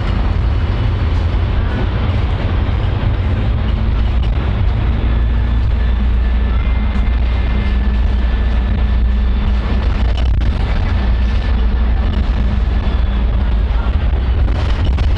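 Public transport vehicle running, a loud steady low rumble with road or track noise over it and a few faint whining tones.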